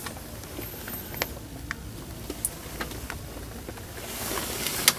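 Steady low background hum with a few light clicks and ticks scattered through it, and a brief rise of hiss near the end.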